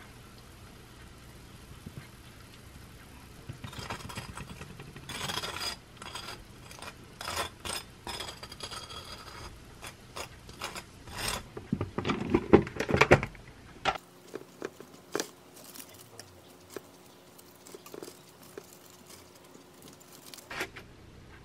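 Close-up food-prep handling sounds: a plastic squeeze bottle squirting sauce onto a toasted bagel half, then a table knife scraping over the bagel as it spreads the sauce, the loudest part, about halfway through. Later come lighter clicks and rustles as lettuce leaves are laid on.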